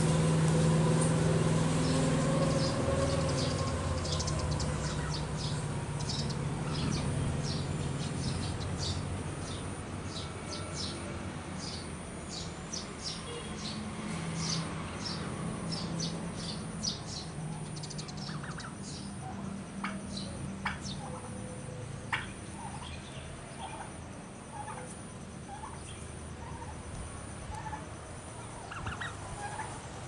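Domestic turkeys calling: many short, high chirping notes through the first half, then scattered sharper clucking calls. A low steady hum sits under the first few seconds.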